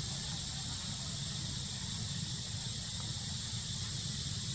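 Steady outdoor ambience: a constant high-pitched insect drone over a low rumble.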